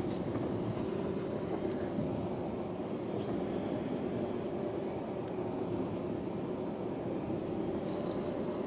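Steady low drone of a vehicle's engine and tyres as it drives slowly along a rural track.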